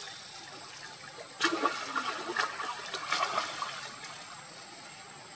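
Water splashing and sloshing as macaques move and swim in a shallow muddy pool, with a run of louder splashes from about a second and a half in to about three and a half seconds.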